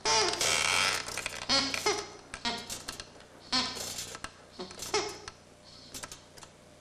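Sound effects for a stop-motion mannequin moving: a burst of rustling at the start, then short clicks and brief squeaky, voice-like chirps on and off, thinning out near the end.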